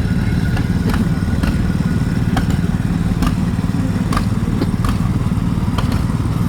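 An engine running steadily close by, with sharp clicks about once a second over its rumble.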